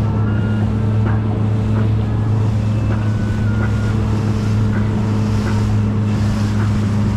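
Small motorboat's engine running at a steady speed with a constant low hum, over water rushing along the hull and wind on the microphone.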